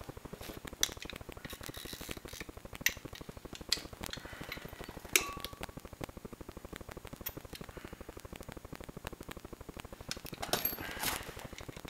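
Metal hand tools clinking as a different socket is picked out. A few sharp clinks, the loudest about five seconds in with a brief ring, and a cluster of clatter near the end.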